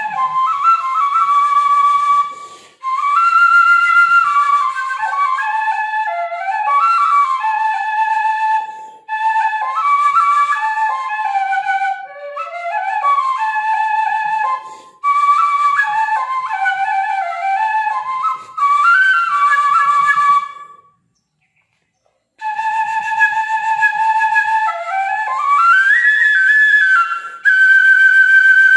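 Tibetan gling bu flute playing a slow melody in phrases broken by short breaths. About three quarters of the way through it stops briefly, then returns with held notes. Near the end a note slides up into a long, high, held tone.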